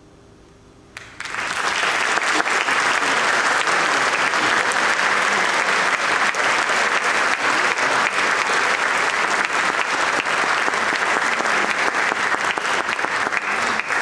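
Audience applauding. The clapping breaks out about a second in, after a moment of quiet, and then holds steady.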